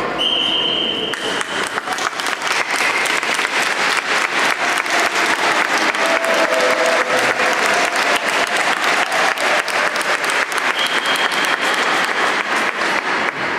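A referee's whistle blows once, then hand-clapping applause runs on through the rest. A second, shorter whistle blast comes about 11 seconds in.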